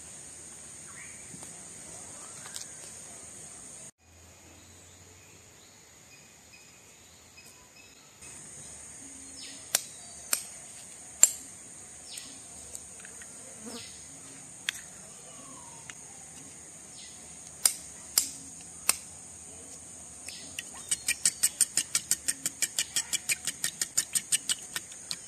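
A spoon beating eggs in a clay bowl: a fast, even run of clicks, about seven a second, starting near the end and the loudest part. Before it come a few sharp single knocks of eggs being cracked on the bowl, over a steady high buzz of insects that drops out for a few seconds early on.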